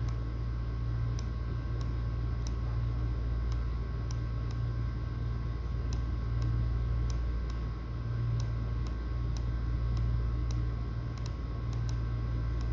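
Light, irregular clicks, about one or two a second, over a steady low hum.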